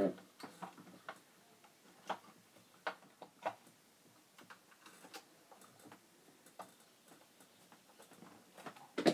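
Sparse small clicks and taps of a screwdriver and screws against the plastic lamp assembly of a vintage Sansui 881 receiver as it is fitted and screwed back in, with a sharper click near the end.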